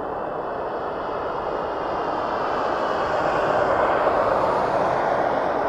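Airbus A380 airliner's four jet engines at approach power as the plane comes in low overhead on final approach to land. A steady rushing jet noise swells, loudest about four seconds in.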